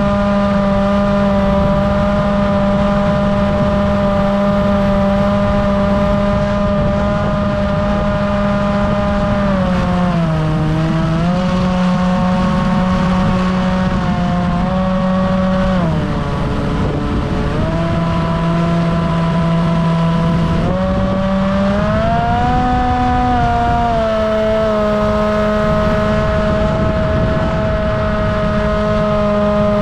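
Bixler RC plane's brushless electric motor and pusher propeller whining at a steady pitch, with wind noise on the onboard camera. The pitch drops about 10 seconds in and again about 16 seconds in as the throttle eases, then climbs back up about 21 seconds in.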